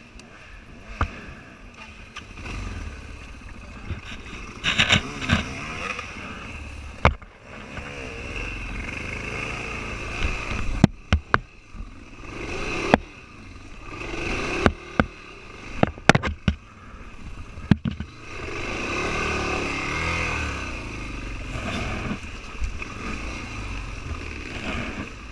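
Dirt bike engine running as it rides over a rough, muddy trail, with the throttle opening up for a few seconds past the middle. Sharp knocks and clatter from the bike jolting over ruts and roots.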